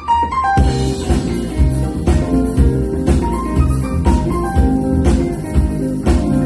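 Live band playing a jazz-funk instrumental passage with drum kit, bass, guitar and keyboard; after a brief break the full band comes back in about half a second in with a steady beat.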